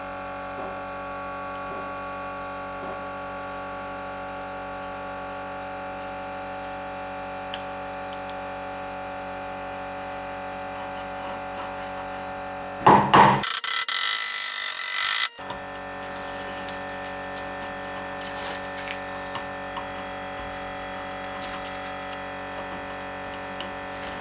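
Steady machine hum made of several fixed tones. About thirteen seconds in, a loud hiss cuts in and stops abruptly after about two seconds.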